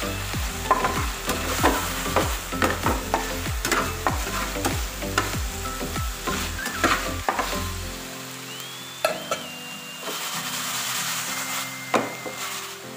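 Pork tapa pieces sizzling in a nonstick frying pan while a slotted metal spatula stirs and scrapes them in quick repeated strokes. About eight seconds in the stirring stops, leaving a quieter steady sizzle with a couple of light taps.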